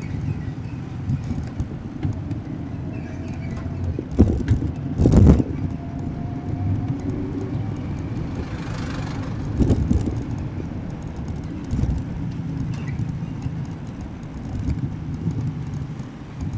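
City street traffic heard from a moving bicycle: a steady low rumble of vehicle engines, with a few loud knocks about four and five seconds in and a short hiss about nine seconds in.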